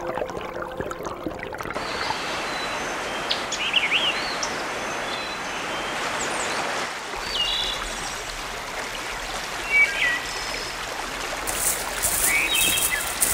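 Water of a small rocky stream running steadily, with a few short bird chirps over it. Music fades out shortly after the start.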